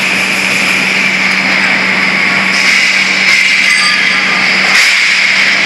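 Steady machinery din of a hydraulic riveting assembly line for vehicle frames, with a constant low hum under a high hiss and one brief knock about five seconds in.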